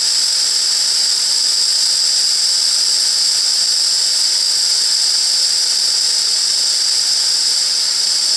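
Compressed air hissing steadily at full flow through a Festo SFAM flow sensor's air line, the flow control opened wide.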